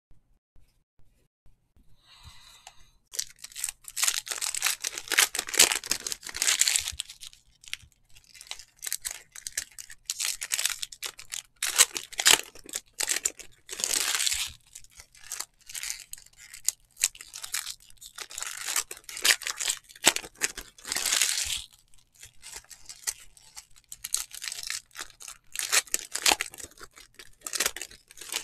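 Foil trading card pack wrappers being torn open and crinkled, with cards snapping and sliding as they are flipped through by hand. The rustling starts after a couple of quiet seconds and comes in repeated swells.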